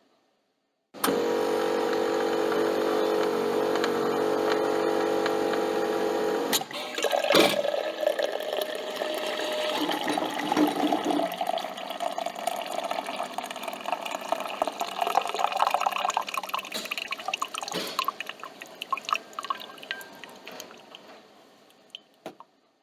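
Coffee machine's pump running with a steady buzz, starting about a second in, then a sharp clunk, then coffee streaming and dripping into the cup for a long stretch, tapering off near the end.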